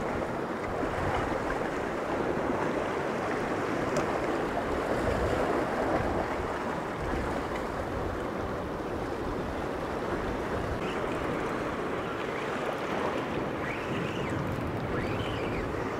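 Steady wash of ocean waves, with wind.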